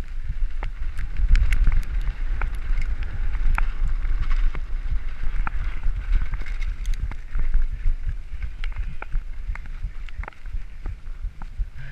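Mountain bike riding fast over a gravel and dirt track: wind buffeting the microphone, tyres crunching on the gravel, and frequent sharp rattles and clicks from the bike over the bumps.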